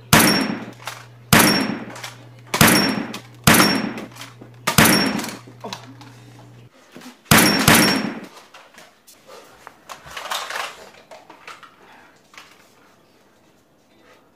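A Nerf toy blaster fired in a rapid series: seven sharp, loud bangs, each with a short ringing tail. Five come about a second apart, then two close together. Quieter knocks and rustling follow.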